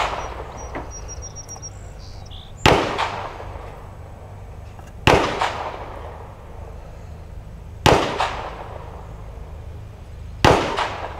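Four gunshots about two and a half seconds apart, each sharp crack trailing off in an echo.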